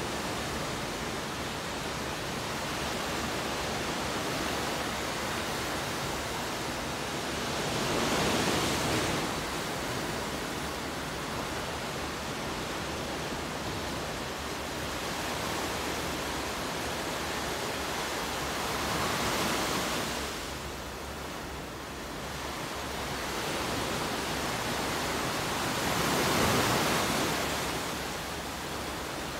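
Ocean surf: a steady rush of sea noise that swells louder three times as waves break and wash in.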